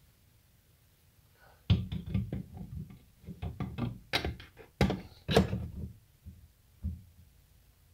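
Fist pounding on the aluminium case half of a Suzuki Vinson ATV engine to seat the sealant-coated case halves together: a run of irregular, sharp knocks beginning a couple of seconds in and dying out near the end.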